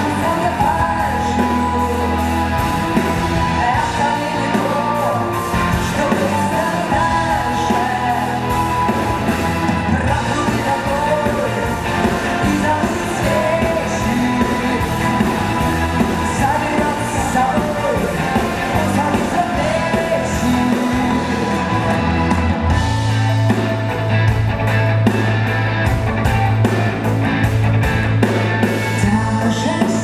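Live rock band with a string section playing a song: a woman's lead vocal over electric guitar, drums, violins and cello. About two-thirds through, the bass gets heavier and a steady, even drum beat comes in.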